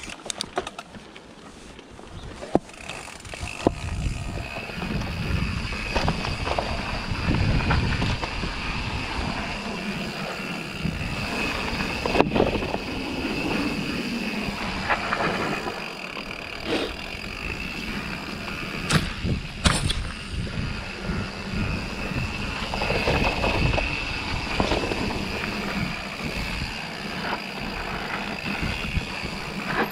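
Santa Cruz Bronson V4 mountain bike descending a dirt trail, heard from a camera on the bike: tyres rolling over dirt with a steady low rushing noise, and rattles and sharp knocks from the bike over bumps, the sharpest about twelve and nineteen seconds in.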